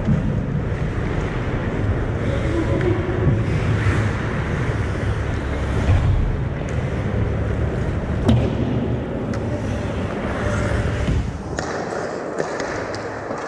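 Pickup ice hockey play: skate blades scraping on the ice, with a few sharp knocks of sticks and puck, over a steady low arena hum.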